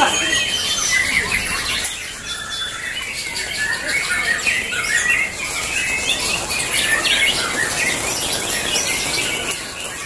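Several caged white-rumped shamas (murai batu) singing at once, a dense overlapping mix of whistles and chirps with no break.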